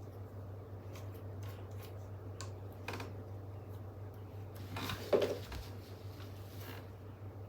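Small metal tools being handled on a workbench: scattered light clicks and taps, with a louder clatter about five seconds in, over a steady low hum.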